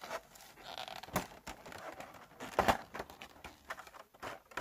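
Plastic toy packaging being opened: a clear plastic blister cover prised off a plastic tray, giving a few scattered clicks and crinkles, the loudest about two and a half seconds in.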